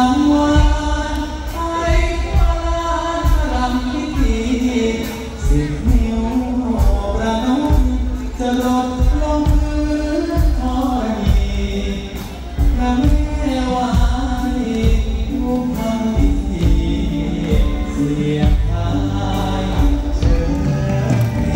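Male vocalist singing live into a handheld microphone, amplified through a stage PA over band accompaniment with a steady drum beat.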